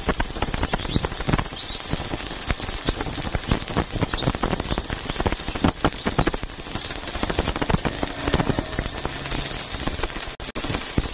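Stick-welding arc with a flux-coated electrode crackling and sizzling steadily as it lays a weld bead on steel plate, cutting out for a split second near the end.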